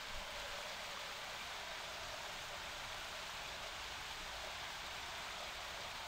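Small waterfall pouring into a rocky pool: a steady, even hiss of falling and splashing water.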